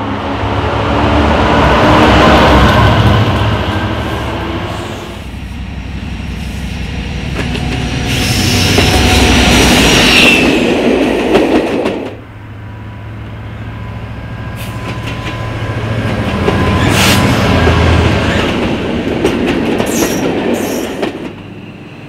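Diesel locomotives passing under hard power, a heavy engine rumble with wheels on the rails, swelling and fading in waves. The sound cuts off abruptly about halfway through, and a second passing train starts up.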